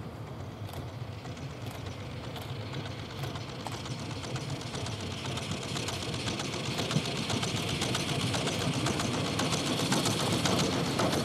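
Jb-class steam locomotive approaching under steam, its rapid exhaust chuffs growing steadily louder as it comes closer.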